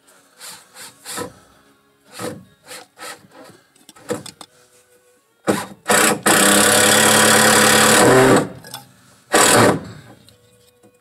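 Hand work on PVC pipe and fittings: a series of short scraping strokes, then a loud harsh rasping sound lasting about two seconds, then one more short rasp.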